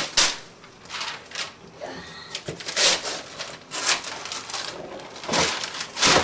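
Wrapping paper being torn and crumpled off a gift box in a run of quick, irregular rips.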